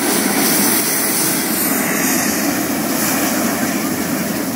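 Hot-air balloon's propane burner firing: a loud, steady rushing noise that starts suddenly and holds without a break.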